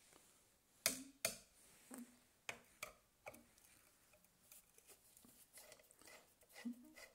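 Handling noise: scattered clicks and light knocks, the two loudest close together about a second in, then fainter ticks.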